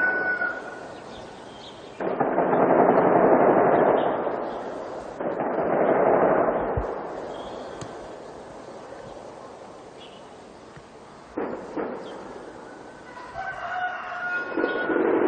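Two loud bangs, each starting suddenly and echoing away over about two seconds, with a few sharper cracks later on. A rooster crows near the start and again near the end.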